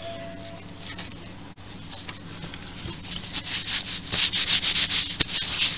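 Rubbing and scraping on metal lathe parts at the workbench: quick strokes that start faintly, then come thick and fast from about three seconds in. One sharp knock near the end.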